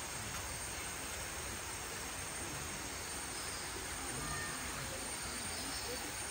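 Steady background hiss with faint, distant voices now and then.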